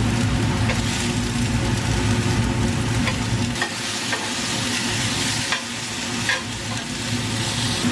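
Chopped onion, garlic and bell pepper sizzling in hot oil in a frying pan while being stirred, with a few short clicks of the utensil against the pan. A steady low hum runs underneath.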